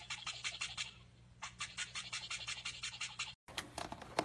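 Toothbrush scrubbing in quick, even strokes, about eight a second, in two runs with a short pause about a second in.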